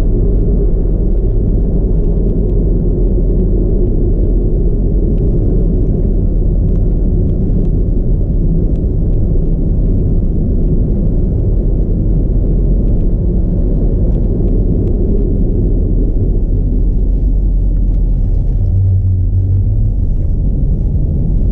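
Car driving on an expressway, heard from inside the cabin: a steady low rumble of engine and tyre road noise. A stronger low hum comes in briefly near the end.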